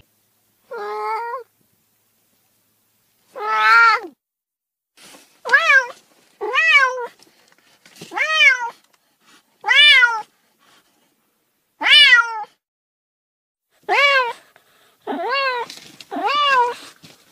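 Cat meowing repeatedly: about ten separate meows, each rising and then falling in pitch, with short pauses between them.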